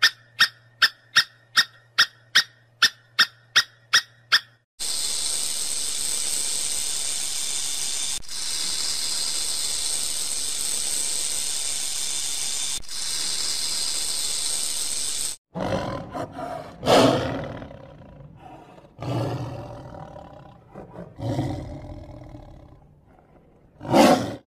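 Short chirping calls, about three a second, then a long steady hiss, then a lion roaring several times. The last roar is the loudest.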